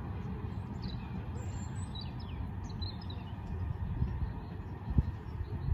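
Birds chirping over the low rumble of a distant RER C electric commuter train running past, with a single low thump about five seconds in.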